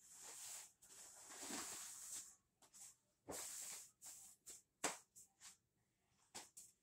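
Faint rustling of clothing being handled, in irregular bursts, with a few light clicks and taps, the sharpest about five seconds in.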